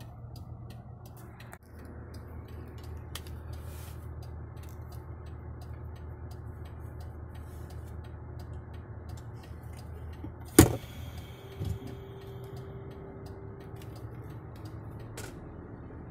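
Steady low drone of a truck's engine and road noise heard inside the cab while driving. A sharp knock comes about ten seconds in, and a smaller one a second later.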